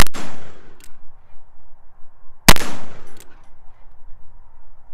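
Two shots from a .36 caliber Uberti reproduction 1851 Colt Navy cap-and-ball revolver loaded with black-powder paper cartridges and round balls, about two and a half seconds apart, each with a short echoing tail. A faint sharp tick follows each shot under a second later.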